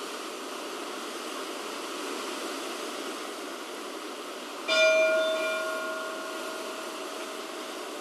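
A single stroke of a church bell a little past halfway, ringing out clearly and dying away over about three seconds. Steady wind rushes in the trees throughout.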